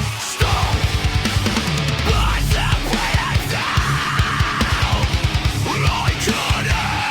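Heavy metal music: distorted electric guitar over rapid, driving drums.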